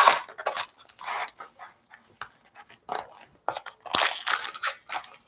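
Cardboard collector booster display box being handled and folded open, with the foil-wrapped booster packs inside rubbing against it: an irregular run of short scrapes, rustles and crinkles.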